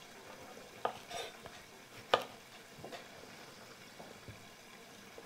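Kitchen knife halving tomatoes on a wooden cutting board: a few sparse knocks of the blade against the board, the sharpest about two seconds in.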